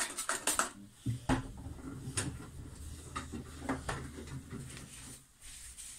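A quick run of sharp clicks at the start, then scattered light clicks and knocks of things being picked up and handled, over a faint low hum.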